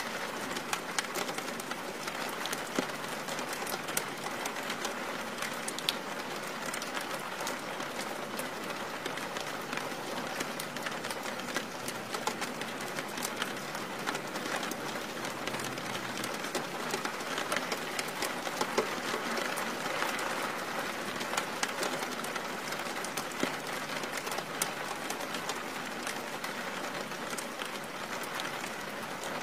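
Steady rain falling: an even hiss with many small drop ticks, holding level throughout.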